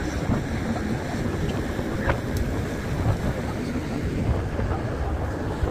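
Wind buffeting the microphone on a ferry's open deck: a steady, gusty low rumble.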